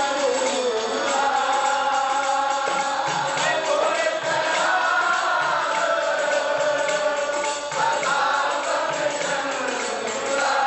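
Sikh kirtan: a woman leads a hymn at the harmonium and a group of men sing along, with a light percussion beat ticking along.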